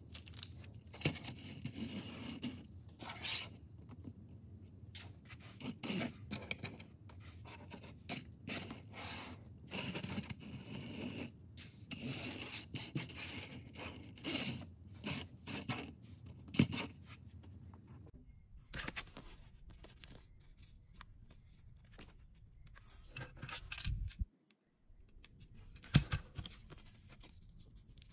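Small plastic building bricks and toy wheels handled and pressed together: a busy run of clicks, taps and rustles. After a break the clicks thin out, with two louder taps, and near the end a sticker is peeled from its backing sheet.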